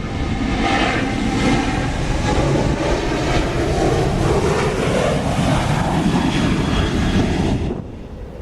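Jet airliner's engines, a loud steady rumble and hiss with faint whining tones, cutting off abruptly near the end.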